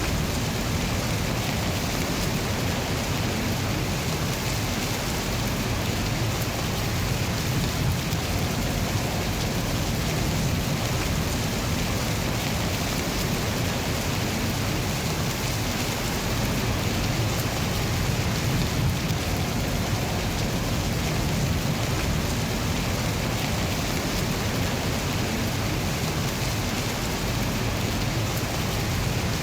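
Steady rain falling, an even continuous hiss with no break or change.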